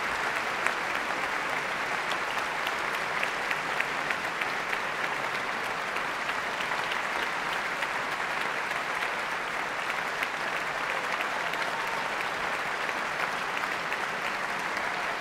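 Audience in a concert hall applauding steadily, a dense, even clapping.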